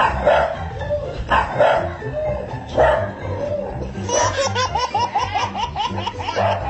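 A dog barks a few times, then a burst of rapid laughter starts about four seconds in, all over background music with a steady bass.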